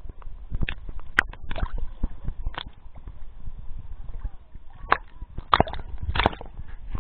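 Sea water splashing and sloshing against an action camera held at the waterline, with sharp splashes every second or so, the loudest in the second half, over low rumbling bumps.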